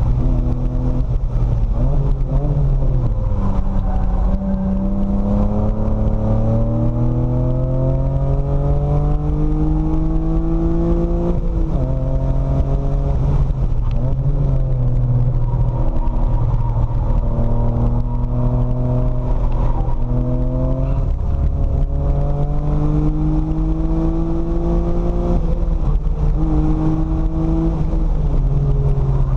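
BMW E30's engine heard from inside the cabin while lapping a track. The revs climb in long steady pulls, then drop abruptly a few times, at shifts or lifts.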